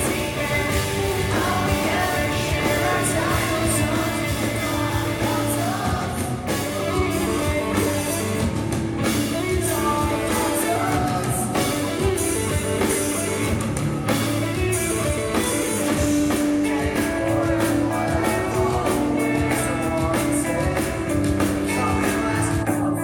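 Pop-punk band playing live: sung lead vocals over electric guitars, bass and drums, loud and continuous.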